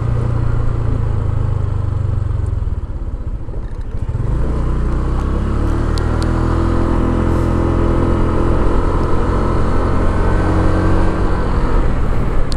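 Motor scooter engine running under way, with road and wind noise. The throttle eases off about three seconds in, then the engine picks up speed and settles into a steady drone.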